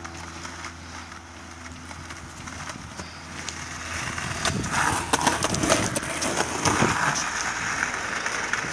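Skateboard wheels rolling over pavement, a rough rumble that grows louder from about four seconds in, with a few clicks and clacks of the board. A steady low hum runs beneath it.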